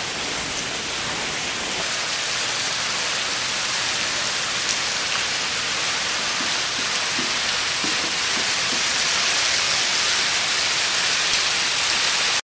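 Pumped sump water from a hose splashing and spattering, a steady rain-like hiss.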